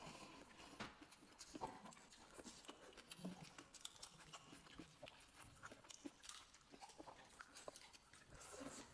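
Faint chewing and mouth noises of a person eating, a run of small wet clicks and smacks.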